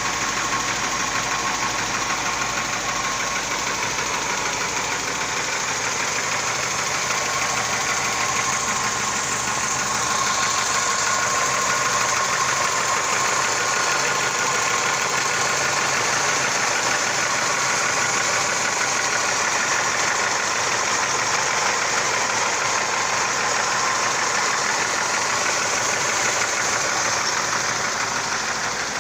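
Mazda 626 engine idling with a steady, rapid knock from the engine.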